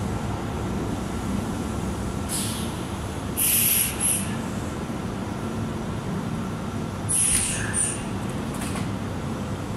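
Kintetsu 12200-series limited express train standing at the platform with a steady low hum from its equipment, broken by two loud bursts of compressed-air hiss from its pneumatic system, about three and a half seconds in and again about seven seconds in, each ending in a short second puff.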